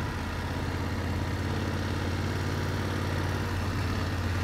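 BMW F750GS motorcycle's parallel-twin engine running steadily as the bike is ridden, a low even hum.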